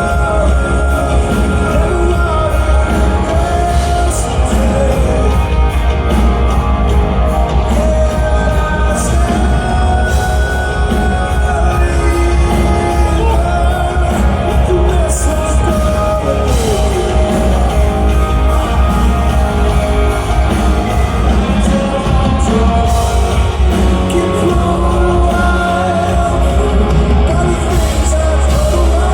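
Live rock band playing loud, with electric guitars, heavy bass and drums, and a singer's voice over the top.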